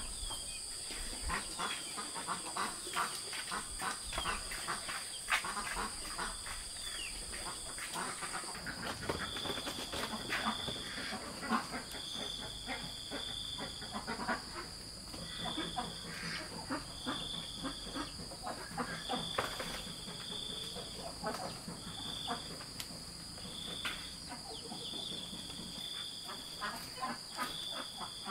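Steady high insect drone, joined from about nine seconds in by a short high chirp repeating every second or two, over soft taps and rustles of hands working soil into bamboo-tube planters.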